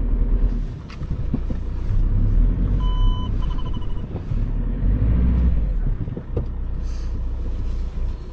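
VW Caddy van's engine running and revving in surges, a low rumble that rises and falls, during an attempt to drive it out of mud. About three seconds in, an electronic beep sounds, followed by a short run of rapid beeps.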